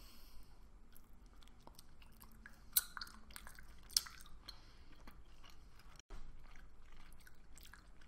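A person chewing a soft gummy jelly candy with the mouth close to the microphone: faint, wet, sticky mouth sounds with scattered small clicks, two of them sharper about three and four seconds in.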